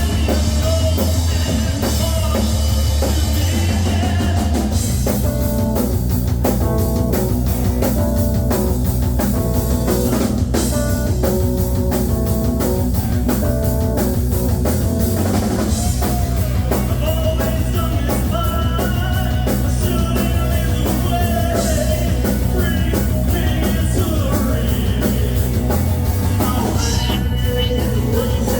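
Rock band playing: a drum kit keeping a steady beat under bass and guitar, with a singing voice.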